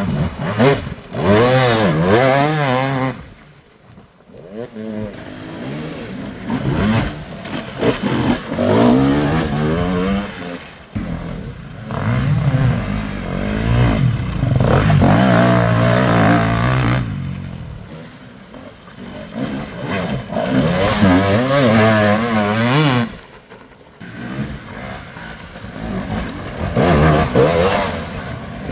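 Enduro dirt bike engines revving hard, the pitch swinging up and down with repeated bursts of throttle, in several loud spells with brief dips between them.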